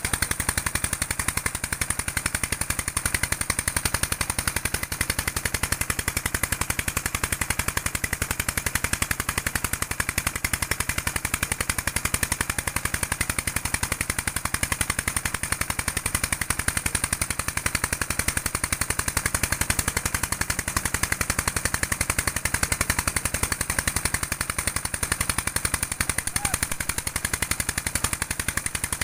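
Diesel engine running steadily at a rapid, even beat, chugging without change in speed or load.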